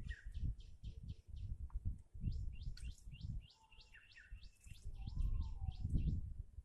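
Small birds chirping in quick runs of short falling notes, about four or five a second, with a few lower whistles. Beneath them is an uneven low rumbling noise, which is the loudest sound.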